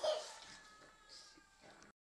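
Pug vocalising as it plays and tugs: a short sharp yip right at the start, then a faint high whine, before the sound cuts out suddenly near the end.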